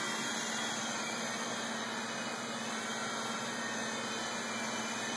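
Blade mCX2 micro coaxial RC helicopter's rotors and motors running with a steady whirring hum and hiss.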